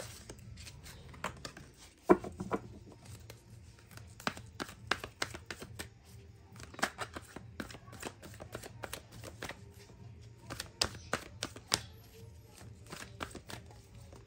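A deck of tarot cards shuffled by hand: an irregular run of soft card clicks and slaps, with a sharper slap about two seconds in.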